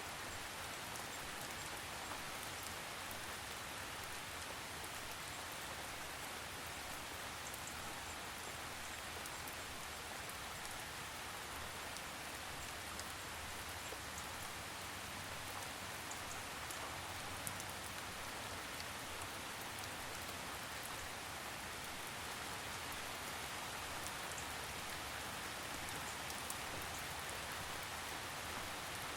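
Steady rain falling, an even hiss of many drops with faint scattered drip ticks.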